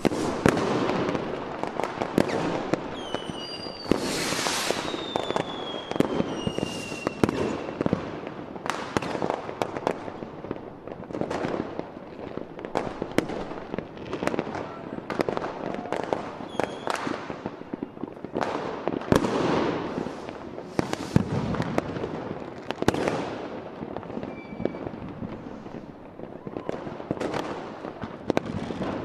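Aerial fireworks display: a dense, irregular series of bangs from bursting shells, with a few whistles falling in pitch about four to seven seconds in.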